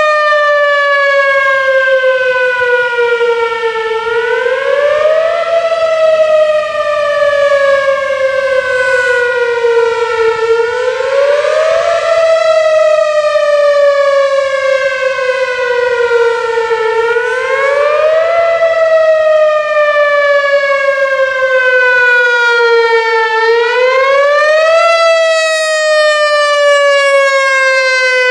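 Whelen Vortex electronic outdoor warning siren sounding its wail tone, loud and rich in overtones. Four times the pitch climbs quickly over about a second, then sinks slowly over about five seconds.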